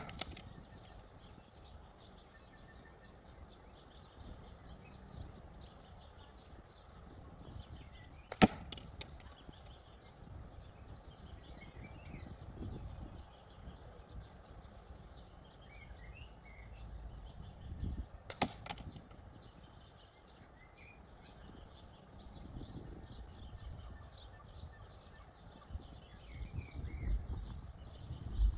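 Slingshot shots: 9.5 mm steel balls hitting the target box as sharp single cracks, one at the start, one about 8 seconds in, one about 18 seconds in and another right at the end.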